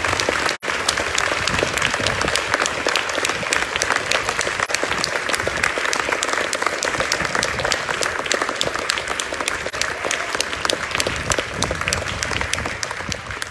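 Audience applauding: a dense, steady clapping that drops out for a split second just after the start and fades away near the end.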